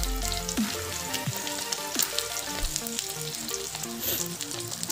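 Egg-battered broccoli florets deep-frying in hot oil in an iron karahi: steady sizzling with many small crackles.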